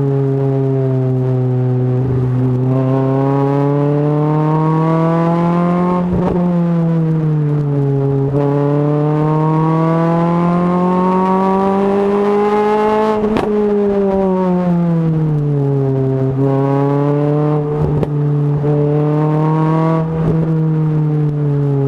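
Renault Clio RS 200 with a Supersprint exhaust driven hard, the engine note climbing through the revs and dropping back again and again as it changes gear and lifts off, with short sharp breaks at several of the shifts.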